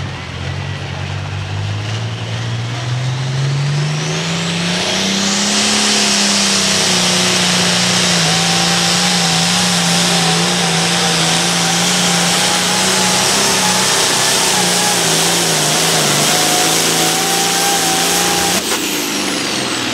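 International Harvester hot farm pulling tractor's 466-cubic-inch turbocharged diesel, loud under full load as it pulls the sled. It winds up over the first five seconds, then holds high revs with a thin whine on top. The sound drops off suddenly near the end.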